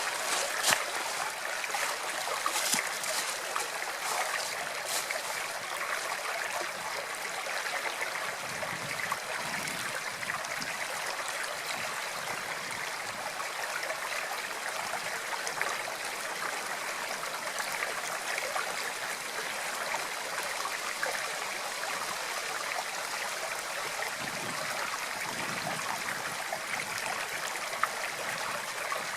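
Water flowing steadily in a stream, trickling and gurgling, with a few splashy spatters in the first few seconds.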